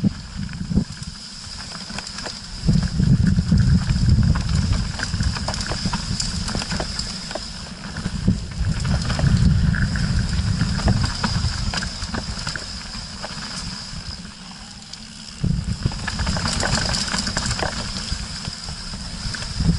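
Canyon Strive mountain bike rolling fast down a rocky, gravelly trail: tyres rumbling over loose stones and the bike rattling in many sharp clicks, with wind buffeting the action camera's microphone. The rumble eases twice and comes back loud after about three seconds and again near the end.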